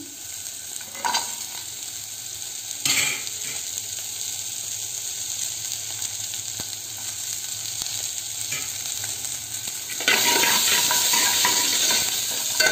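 Chopped green chillies sizzling in hot oil in an aluminium pot, stirred with a steel ladle that clinks against the pot a couple of times. The sizzle grows louder about ten seconds in.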